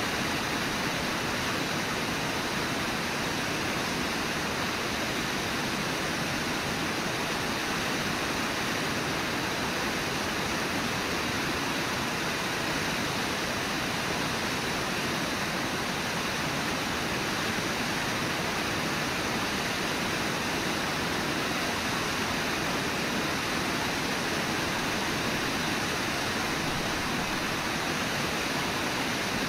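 Steady rushing of whitewater rapids at the foot of a waterfall, even and unbroken.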